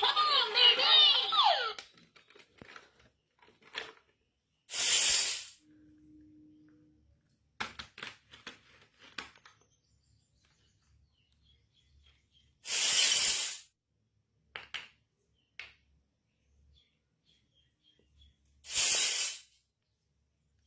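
Background music cuts off, then packaging of a miniature toy kitchen set is handled: three loud rasping sounds of about a second each, with light clicks and taps between them.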